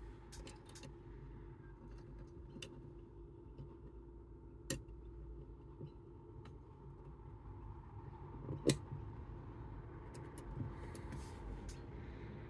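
Scattered sharp, small clicks and taps of metal being handled, likely the Chubb Detector lever lock and its picking tools, over a steady low hum. The loudest click comes about three-quarters of the way through.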